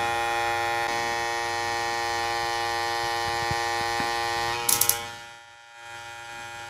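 Brushless cordless hair clipper running with a steady, quiet motor whine, held up to a sound level meter. The whine stops about four and a half seconds in, with a few clicks, leaving only a faint low hum.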